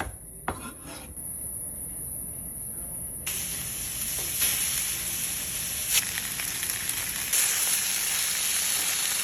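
Mackerel pieces searing in hot oil in a pan: a steady, loud sizzle that starts suddenly about three seconds in. It follows a couple of knife chops on a cutting board just after the start.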